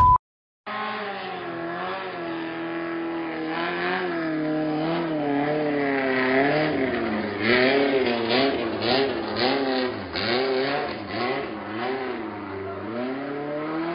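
Small motorboat's engine running hard at speed, its pitch wavering up and down again and again as it revs. It starts about a second in.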